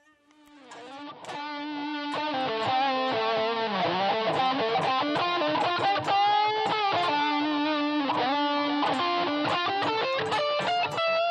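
Electric guitar played solo, a run of quick picked notes with string bends. It swells in over the first couple of seconds and then carries on at a steady level.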